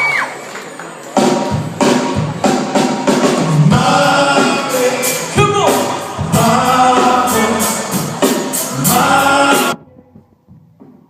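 Nasheed-style singing over a steady drum beat, cutting off abruptly near the end and leaving only faint singing.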